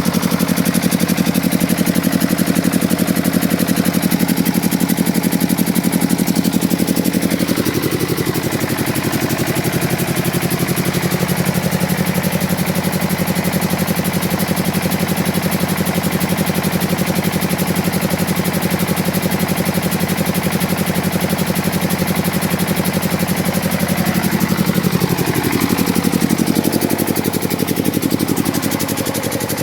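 Two-cylinder water-cooled diesel engine of a 20 kVA generator set running steadily at its governed speed of about 1500 rpm. Its note dips and comes back up about eight seconds in and again about twenty-five seconds in.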